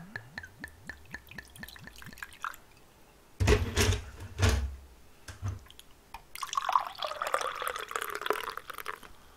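Soju glugging out of a glass bottle into a glass in quick small pulses, then a few dull knocks. In the last third, beer poured from a can with a steady fizzing rush as the somaek is mixed.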